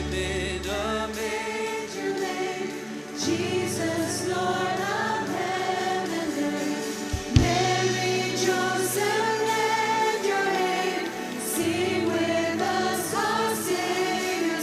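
A choir singing with instrumental accompaniment, held low bass notes changing under the voices every few seconds. A single sharp thump about halfway through.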